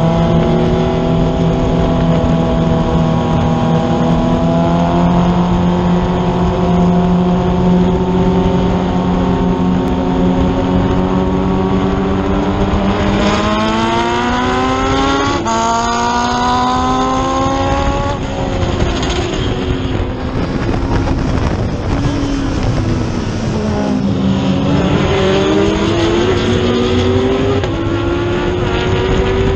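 Race car engine heard from on board at high revs, over wind and road noise. It holds a steady pitch, then climbs hard with an upshift partway through, falls away for several seconds as the car slows, and climbs again through two quick upshifts near the end.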